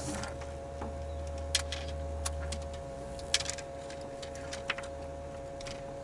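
Scattered light clicks and ticks of fishing gear being handled on a bass boat's deck, about one a second, over a steady low hum with a faint high whine; the low hum drops away about three seconds in.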